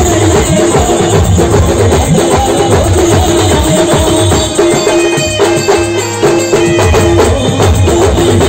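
Loud live band music: a heavy drum beat under a short melodic phrase repeated over and over.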